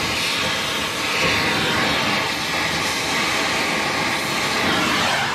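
Gas torch flame hissing steadily at full blast as it heats a rusted exhaust bracket bolt red hot, the heating stage of a heat-and-quench to break the rust free.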